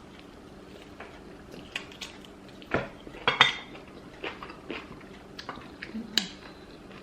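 Scattered light clinks and knocks of a dish and utensils while a meal of fufu and egusi soup is eaten, a few louder knocks about three seconds in.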